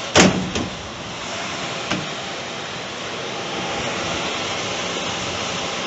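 HVAC furnace blower fan running, a steady rush of air that builds a little over the first few seconds and then holds even. A sharp knock comes just after the start, with fainter ones shortly after and about two seconds in.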